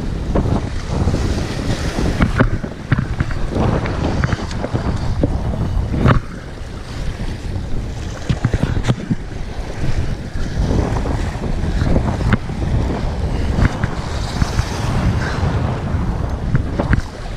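Wind buffeting the action camera's microphone over waves washing against jetty rocks, a loud, gusting rumble. A few sharp knocks come through now and then.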